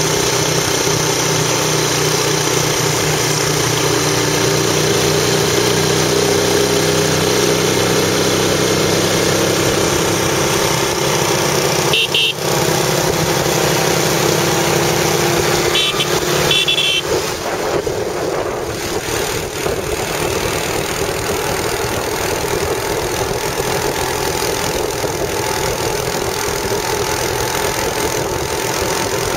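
Small motorbike engines running steadily at riding speed, with rushing wind and road noise on the microphone of the moving bike.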